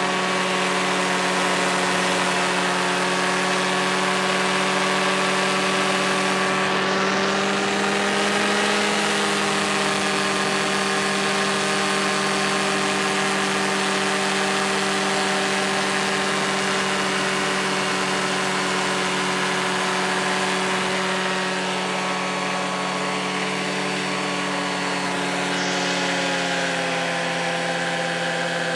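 Paramotor engine and propeller of a powered paraglider running steadily at climbing power in flight: an even drone over a fine hiss. The pitch rises slightly about a third of the way in and drops a little near the end.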